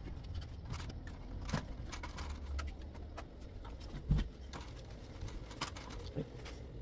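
Handling noise of a recording phone or camera being picked up and carried: a low rumble with scattered light clicks and knocks, and one thump about four seconds in.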